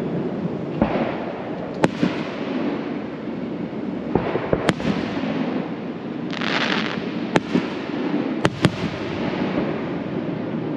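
Aerial fireworks shells bursting with about seven sharp, unevenly spaced bangs, two of them close together near the end. A hissing crackle lasts about half a second midway.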